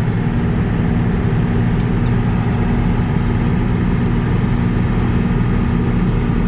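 John Deere 6620 combine's diesel engine running steadily while it unloads its grain tank into a gravity wagon.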